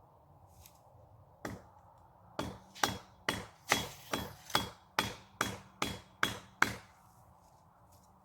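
A tool striking wood: one sharp blow, then a quick run of about ten more at two to three a second, each with a faint high ring, stopping suddenly.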